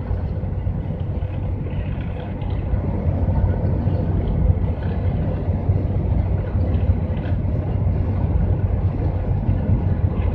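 Steady low rumble of a GAZelle van's engine and tyres at highway speed, heard inside the cab.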